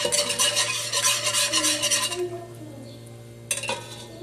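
A utensil stirring hot sugar water in a metal pot, in quick rhythmic scraping strokes that stop about two seconds in. A single sharp click comes near the end.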